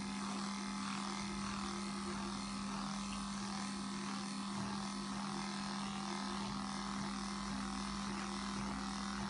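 Corded electric dog-grooming clipper fitted with a #4 blade, running with a steady, even-pitched buzz as it is pushed through a matted coat to strip out the mats.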